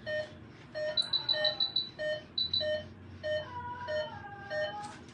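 Anesthesia patient monitor beeping in a steady rhythm, about once every 0.6 s, in time with the sedated animal's heartbeat. A quicker run of higher beeps comes in about a second in. A faint falling whine sounds near the end.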